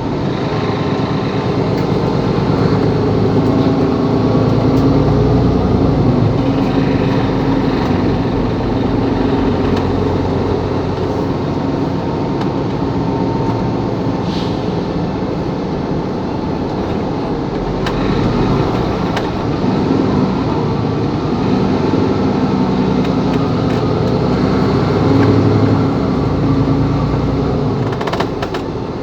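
Mercedes-Benz Capacity L articulated city bus under way, its diesel engine running with road and tyre noise, the engine sound swelling and easing as it changes speed.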